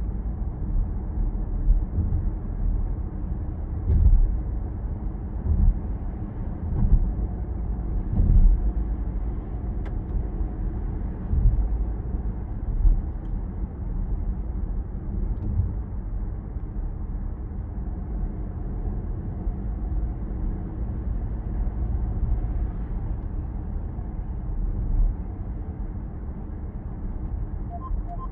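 Cabin noise in a Peugeot 408 with the 1.2 PureTech three-cylinder turbo petrol engine while driving: a steady low rumble of road and engine, with several short thumps in the first half.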